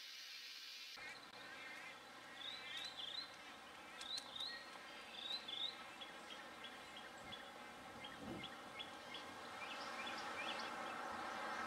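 Birds calling outdoors: a long run of short, high, rising chirps over faint background noise, starting about a second in. A low rushing noise builds toward the end.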